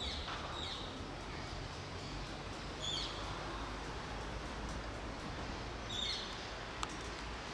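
A small bird chirps briefly a few times, near the start, about three seconds in and about six seconds in, over a steady outdoor background hiss. A single sharp click comes near the end.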